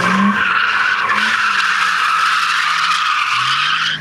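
A BMW E30's tyres squealing in one long, steady screech as the car slides sideways in a drift. The engine runs underneath, its pitch wavering up and down.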